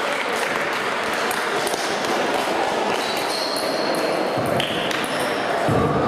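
Table tennis balls clicking off bats and tables, many short sharp taps from the rallies on the hall's several tables, over a steady hubbub of the busy sports hall. A few brief high squeaks come in about halfway through.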